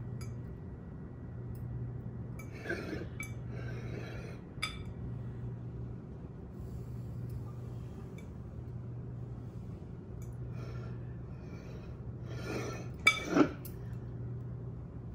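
A utensil scraping and tapping against glass bowls while scooping and spreading a soft cream filling, with a few light clicks early on and two sharp clinks a little after the thirteenth second, the loudest sounds. A steady low hum runs underneath.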